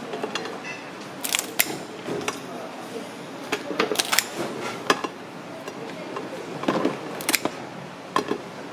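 Kitchen scissors snipping through a cooked king crab's shell: a string of sharp, irregular clicks and crunching snaps.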